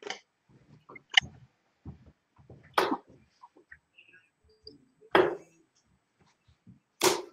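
Steel-tip darts striking a Unicorn Eclipse Pro 2 sisal bristle dartboard: sharp thuds, a couple of seconds apart.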